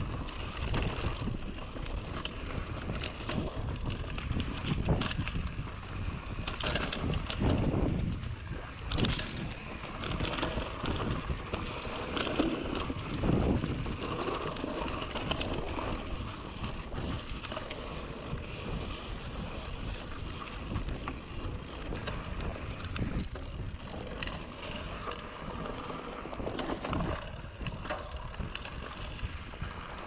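Polygon Siskiu D5 full-suspension mountain bike descending a dirt trail: tyres rolling on dirt and the bike rattling over rough ground, with louder patches of knocking, and wind on the microphone throughout.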